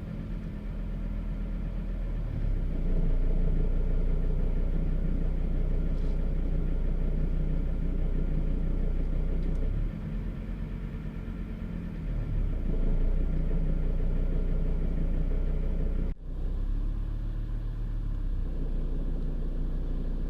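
VW T4's 2.5 TDI five-cylinder diesel engine running, alternating between idle and slightly raised revs, with the level stepping up about 3 s and 13 s in and dropping back between. An extra engine noise is heard at idle and goes away when a little throttle is given.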